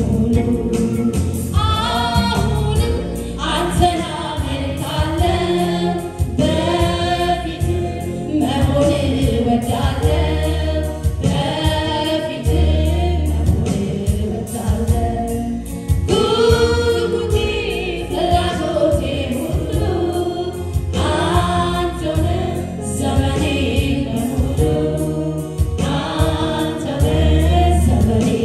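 Live gospel worship song: a woman's lead vocal with backing singers, over sustained electronic keyboard chords.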